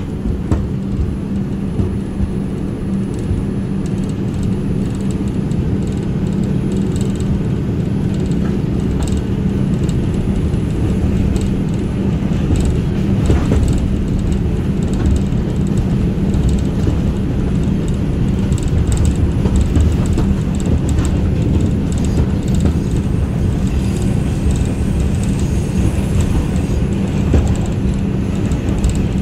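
New York City subway 2 train heard from inside the car, running on elevated track: a steady low drone with a hum and scattered clicks from the wheels on the rails, getting a little louder over the first few seconds as the train pulls away from the station.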